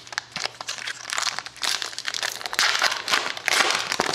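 Trading card pack wrapper being torn open and crinkled by hand: a dense run of quick, sharp crackles.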